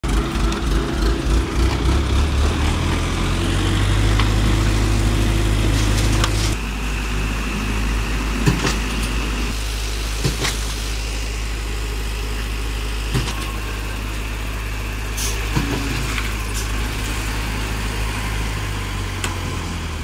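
Engines of heavy construction machinery, a concrete mixer-pump and a wheel loader, running steadily with a low hum, with a few sharp knocks and clanks.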